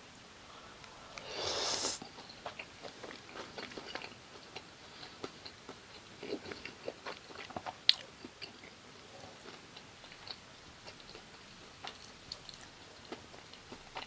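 Close-miked eating of fried gimmari (seaweed-wrapped glass-noodle rolls) coated in spicy tteokbokki sauce: a louder bite about a second and a half in, then wet chewing with many small mouth clicks.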